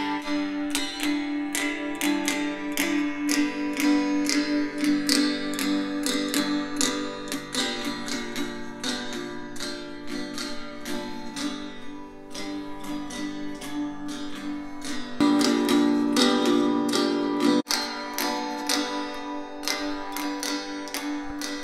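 Acoustic guitar strumming played back through an ADC L1090/2 tower speaker, changing about fifteen seconds in, with a brief cut, to playback through a Heil ESS AMT1 speaker with an air-motion transformer tweeter.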